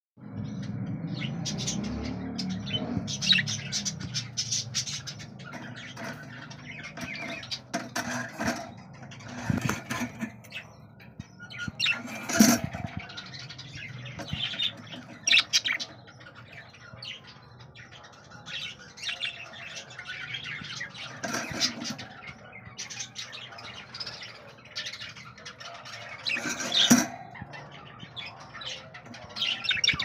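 Hogoromo budgerigars chirping and chattering in short, irregular calls, with a few louder calls standing out.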